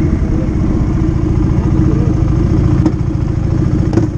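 Motorcycle engine running steadily, with a sharp click about three seconds in and another near the end.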